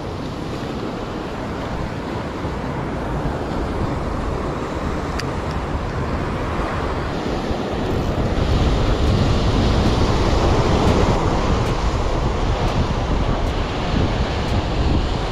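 Ocean surf breaking and washing over rocks below, with wind buffeting the microphone; the rumble grows louder about eight seconds in.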